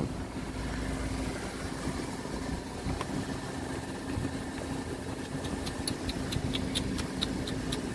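A vehicle engine idling steadily, a low rumble with a constant hum. Near the end a run of quick faint ticks comes in, about five a second.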